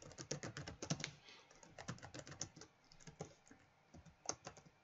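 Computer keyboard typing: a quiet, uneven run of quick keystrokes, with a short pause a little before the end.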